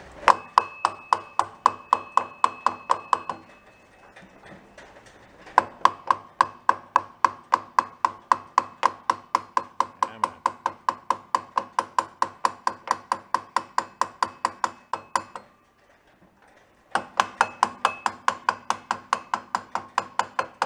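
A plastic-faced mallet taps a centrifugal clutch drum and sprocket along a tight-fitting shaft held in a lathe chuck. The taps are quick and steady, about four a second, and the steel drum rings with each blow. The tapping comes in three runs, with short pauses about four seconds in and again about fifteen seconds in.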